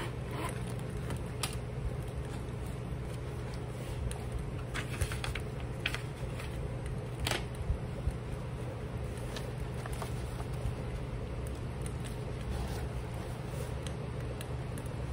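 Pages of a paperback book riffled and turned by hand, with scattered soft taps and rustles from handling its leather book cover, and a sharper tap about seven seconds in, over a steady low hum.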